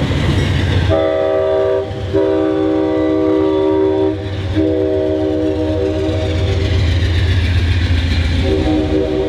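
Amtrak diesel locomotive's chord horn sounding in blasts: a short one about a second in, a longer one, a long one of several seconds, and another starting near the end. Under it runs the steady low rumble of the passenger train rolling past.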